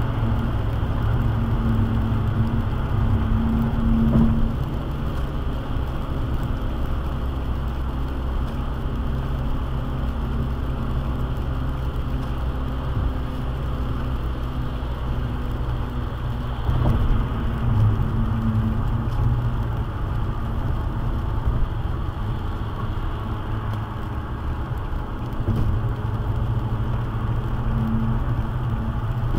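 Car driving on a wet highway, heard from inside the cabin: steady low road and tyre noise with engine hum. It swells briefly about four seconds in and again around seventeen seconds.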